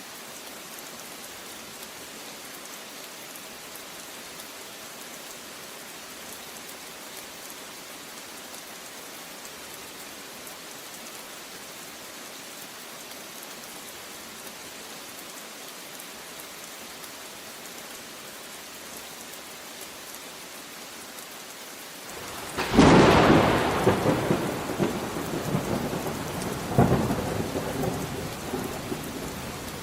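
Steady rain falling, an even hiss, until a loud crack of thunder about three-quarters of the way through, followed by rolling rumbles that swell again a few seconds later.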